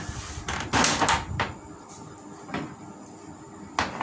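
Plastic back cover of an LG LED TV being worked loose and lifted off: a handful of short clicks and scrapes, several close together about a second in, another near the middle and one more near the end.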